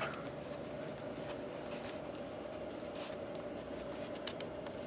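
Faint rubbing and light clicks of hands handling the opened radio's plastic case and circuit board, over a steady low hum.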